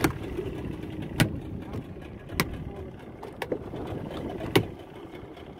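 Five sharp knocks, about one a second, over a low rumble.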